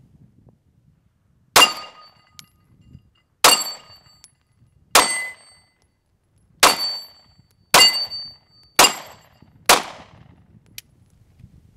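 Springfield XD-S 9mm pistol firing seven shots of 147-grain hollow points at an uneven pace, about one to one and a half seconds apart. Each shot is followed by a short metallic ring.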